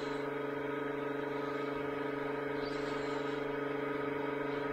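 Steady machine hum at a few fixed pitches, unchanging throughout, with a brief light rustle about three seconds in.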